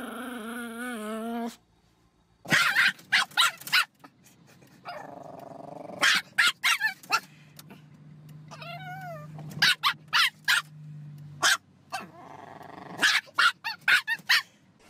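Chihuahua growling, a wavering growl that stops about a second and a half in. After a short gap, a dog barks in four sharp bunches of several barks each, with high whines between them and a low steady hum behind the middle part.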